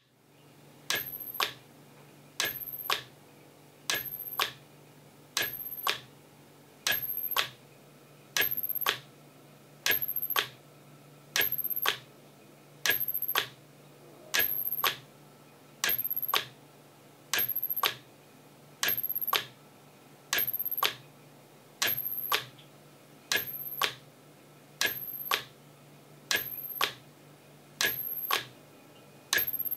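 A linear actuator on a test rig pressing and releasing the trigger of a Storch HotKnife 250 hot knife over and over: about every second and a half, a burst of about half a second that starts and ends with a sharp clack. A steady low hum runs underneath.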